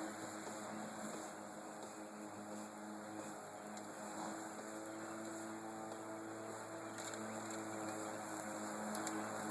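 Battery-powered Black & Decker push lawn mower's electric motor running with a steady hum, its pitch shifting slightly as it cuts grass.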